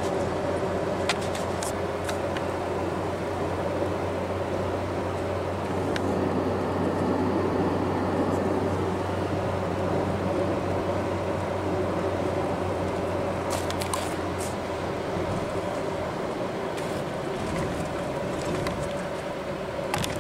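Steady road and engine noise of a car cruising on a motorway, heard inside the cabin, with a few brief clicks scattered through it.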